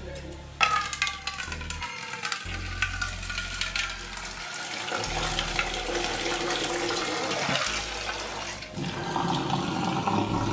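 Tap water gushing into a small metal pot in a stainless steel sink, starting abruptly about half a second in and running on, a little louder near the end.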